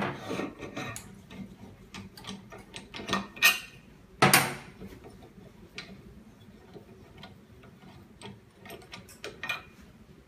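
Scattered small clicks and light knocks of hands handling an LCD de-bubble machine and its screen parts, with two louder knocks a little past three and four seconds in.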